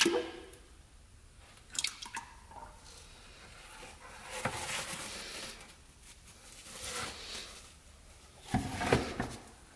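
Old engine oil pouring and dripping into a plastic bucket, with a few knocks from a plastic drain pan being handled.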